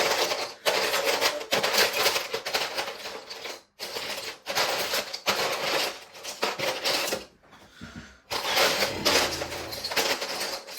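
Loose plastic Lego bricks clattering and rattling as a hand rummages through a box of mixed pieces. The rattling comes in three or four long stretches with short pauses between them.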